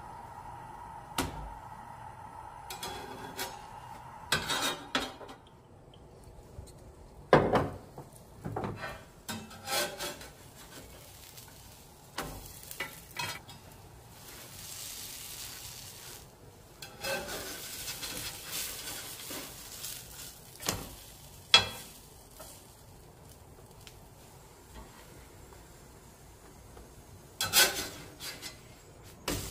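A perforated metal spatula knocking and scraping on a cast-iron griddle as a folded mutabbaq is pressed and flipped, giving sharp clicks at irregular moments. A soft sizzle of the frying dough comes in between them.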